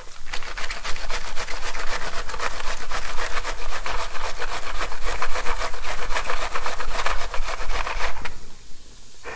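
A wedge of green cabbage pushed rapidly back and forth across a mandoline slicer's blade, shredding it in quick rasping strokes that stop about eight seconds in.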